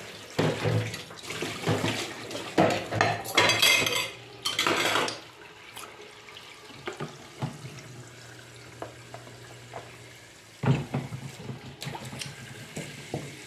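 Dishes being washed by hand under a running tap in a stainless-steel sink: a plastic bowl and plates clatter and water splashes, busiest in the first five seconds and again briefly near the end, with lighter knocks over the steady tap stream in between.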